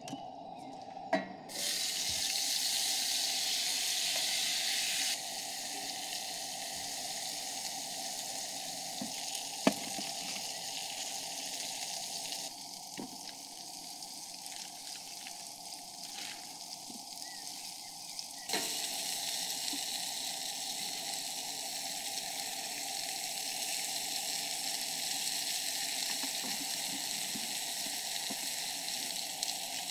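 Food sizzling in a frying pan, a steady hiss that turns louder or softer in sudden steps, with a few sharp taps, the loudest about ten seconds in.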